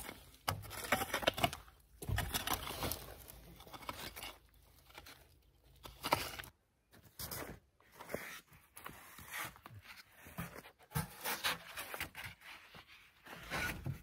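Irregular scraping and scuffing strokes of a long-handled digging tool working soil, then rigid foam insulation boards scraping and rustling as they are set against the ground.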